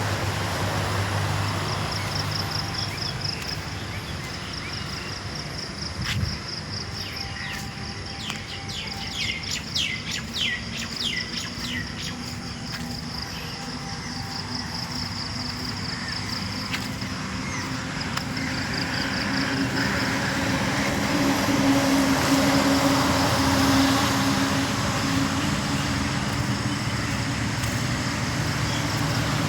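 Outdoor ambience: birds chirping, with a high pulsing trill running through the first half and a quick series of chirps about a third of the way in. In the second half a motor vehicle passes, its noise and low hum growing louder and peaking about three quarters of the way through.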